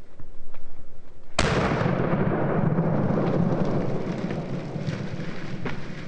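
A single shotgun blast about a second and a half in, followed by a rumbling echo that dies away over the next few seconds.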